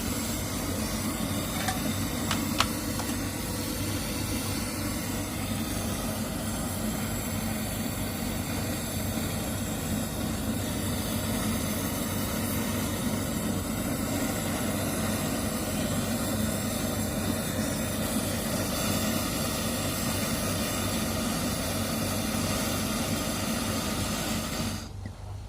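Steady machine hum with a hiss, with two short clicks a couple of seconds in; it cuts off abruptly just before the end.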